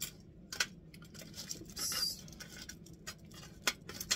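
Metal kitchen tongs flipping slices of garlic bread on a foil-lined baking sheet: a string of light clicks and scrapes on the foil, with a longer scrape about two seconds in and sharp clicks near the end.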